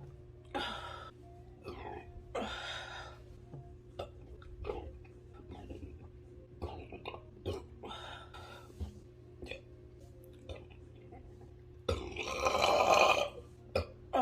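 A woman burping several times, gassy from chugging a 2-litre bottle of Coke. The loudest and longest burp comes about twelve seconds in and lasts over a second. Short clicks fall between the burps.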